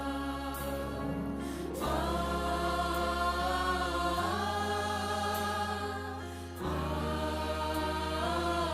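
Music: a choir singing sustained chords over a held bass note, with the chord changing about every two and a half seconds.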